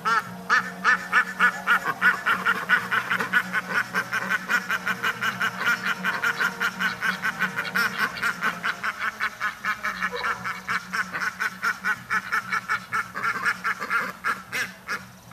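Several domestic ducks quacking together in a fast, steady run of about five quacks a second.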